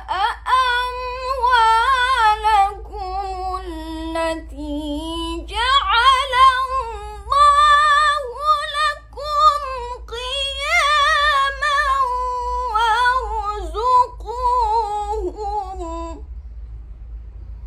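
A woman chanting Qur'anic recitation (tilawah) in a melodic, sung style, with long held notes and ornamented turns that rise and fall. The chanting stops about two seconds before the end, and a low hum runs underneath.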